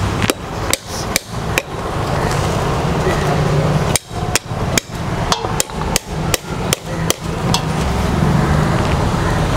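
Sharp knocks of a large knife being driven down through a whole jackfruit by repeated blows, about two or three a second. A short run of knocks, a pause of about two seconds, then a longer run.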